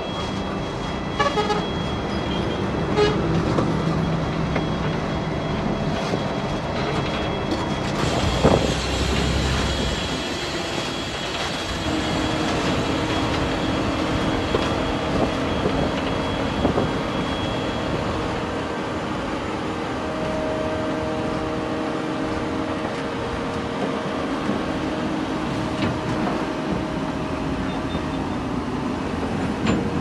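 Diesel engines of heavy earthmoving machinery running under work. Their note shifts about a third of the way through, then settles into a steadier drone.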